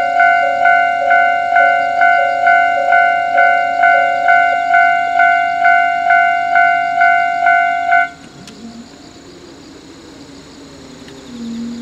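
Japanese level-crossing warning bell ringing about twice a second, then cutting off suddenly about eight seconds in. Under it and after it, the low steady hum of a diesel railcar idling at the platform, swelling briefly near the end.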